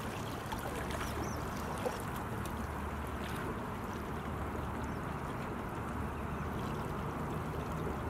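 Steady outdoor harbour ambience: a soft, even wash of water and wind noise, with a few faint high chirps about a second in.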